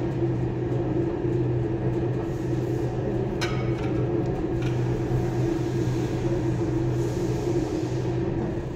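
Electric drive of a three-roller profile bending machine running with a steady hum as its rollers feed a mirror-frame profile through, bending it into a curve. A couple of light clicks come about midway.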